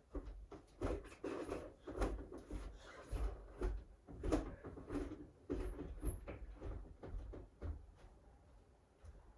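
Scattered knocks and thumps of someone moving about the house: footsteps and doors or cupboards banging, dying down near the end.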